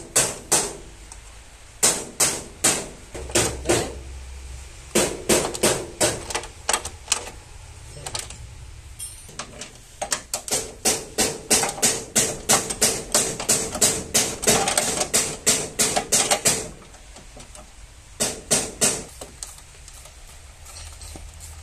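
Hand ratchet wrench clicking in quick runs of sharp metallic clicks, about three to four a second, as bolts on the car's front radiator support are turned, with short pauses between the runs.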